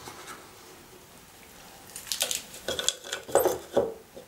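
Fresh coriander leaves and stems rustling and crackling as they are pressed by hand into a tall plastic blender beaker, with a few light knocks of the plastic. It starts about two seconds in, after a quiet spell.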